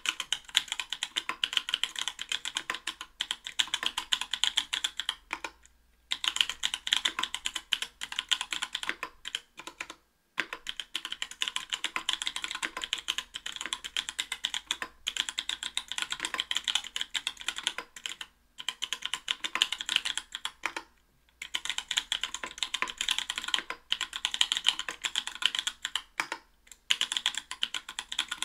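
Fast typing on a mechanical keyboard with stock, unlubricated NK_ Blueberry 80 g tactile switches in an aluminium plate under GMK keycaps: continuous runs of key clacks broken by a few short pauses.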